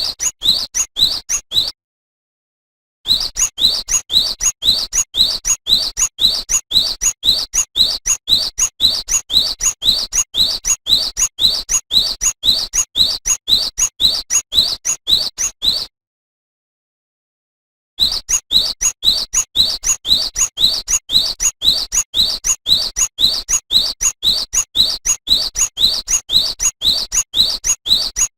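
Cinereous tit (gelatik batu) singing: a long, quick run of short rising whistled notes, about two a second. The run breaks off twice in dead silence, about two seconds in and again at about sixteen seconds.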